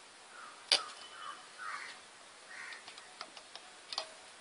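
Plastic clicks from the buttons and switches of an Avionic RCB7X radio-control transmitter being worked. One sharp click comes about three-quarters of a second in, and a few lighter clicks follow near the end, with faint rising chirps behind them.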